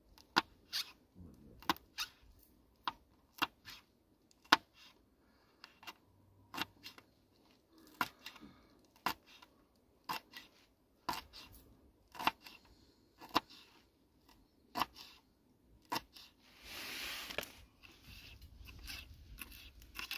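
Kitchen knife slicing green chillies on a wooden chopping board: unhurried sharp taps of the blade on the board, about one or two a second. A brief rustle comes about three-quarters of the way through.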